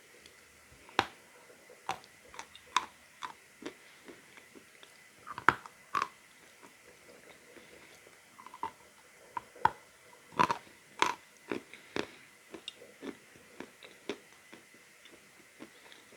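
Lumps of natural edible chalk being bitten and chewed: irregular sharp crunches, a few at a time, with the densest bunches about a third and two thirds of the way through.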